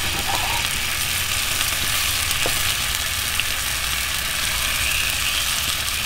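Steady sizzling from barbecue sauce dripping onto the hot grate of a Big Green Egg kamado smoker as venison ribs are basted with a brush.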